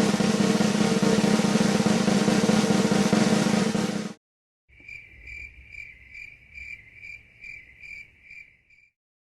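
A snare drum roll sound effect that cuts off about four seconds in. After a short pause comes a cricket-chirping sound effect: a high steady trill pulsing about two or three times a second, ending just before the close.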